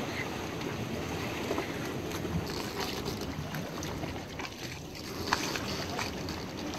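Steady wind noise on the microphone over moving sea water, with a few light knocks, the sharpest about five seconds in.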